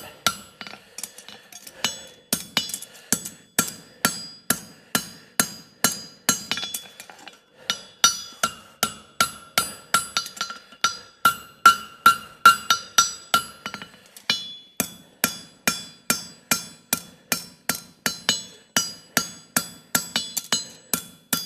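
Hand hammer striking hot steel on an anvil in a steady rhythm of about two to three blows a second, each blow ringing, with a short pause about seven seconds in. The heel of a horseshoe is being drawn out into a jar calk.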